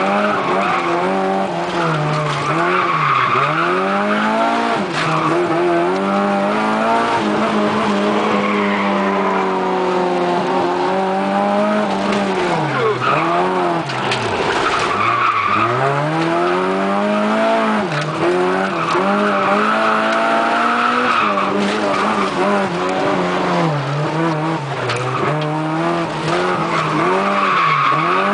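Toyota Corolla AE86's four-cylinder engine heard from inside the cabin, held at high revs and dipping and climbing again every few seconds as the car is drifted, with tyres squealing through the slides.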